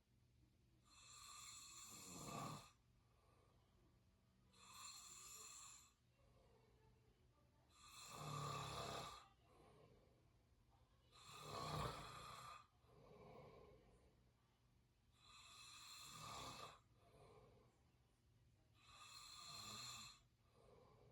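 A person snoring quietly through the open mouth, six breaths spaced about every three to four seconds. The two in the middle are louder and reach lower than the rest.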